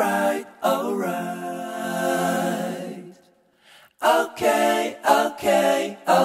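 Singing with little or no instrumental backing: a voice holding notes of a melody, breaking off for under a second about three seconds in before carrying on.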